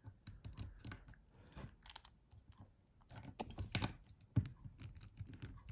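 Irregular small clicks and taps of hand tools and mobile phone housing parts being handled during reassembly, coming in short clusters.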